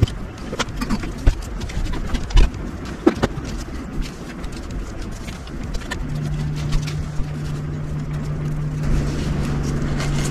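Small clicks and taps of wires and a plastic splice connector being handled and fitted. About six seconds in, a steady low hum starts and keeps going.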